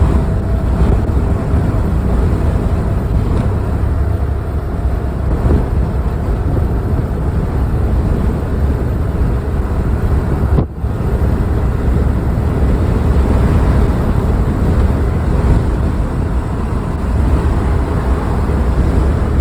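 Steady driving noise from a vehicle at speed, heard from inside the cab: road rumble, wind and engine blending together. It drops out briefly about ten and a half seconds in.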